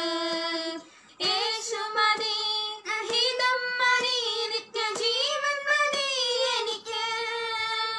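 Two young women singing a Malayalam Christian worship song together in long held notes, with no instruments heard. They pause briefly about a second in, then carry on.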